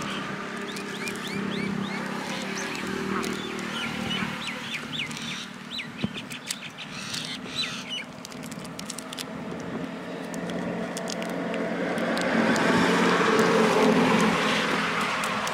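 Birds calling in quick repeated chirps over the steady hum of road traffic, which swells as a vehicle passes near the end.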